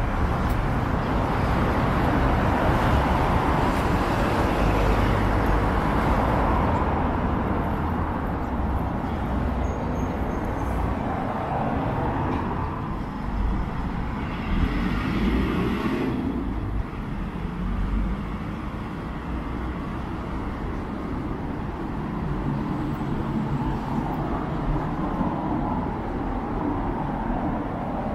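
City street traffic: vehicles passing by over a steady urban background, with louder passes near the start and again about halfway through.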